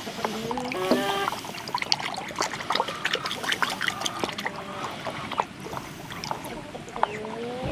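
Chickens calling, with drawn-out calls near the start and again near the end. In between there is a busy run of small clicks and a pouring, trickling sound.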